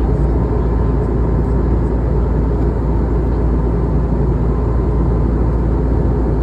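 Steady cabin noise of an Airbus A320neo in flight: a constant, even low rumble of engines and airflow with no change.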